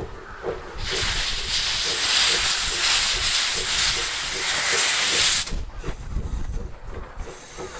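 C58 class steam locomotive venting steam from its open cylinder drain cocks as it moves off slowly: a loud hiss that starts about a second in and cuts off suddenly after about four and a half seconds, over the low rumble of the moving engine.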